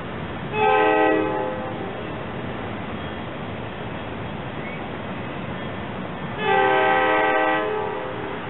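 Horn of an approaching SEPTA electric commuter train sounding two blasts of several notes at once: a short one near the start and a longer one about six and a half seconds in, over a steady outdoor hiss.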